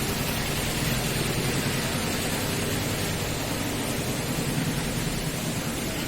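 Steady, even rushing noise with no speech, unchanging throughout.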